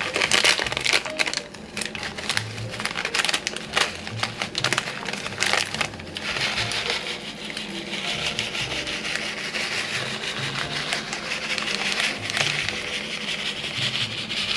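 Spatula spreading frosting over brownies in a baking pan: irregular clicks and knocks for the first six seconds or so, then a steadier scraping.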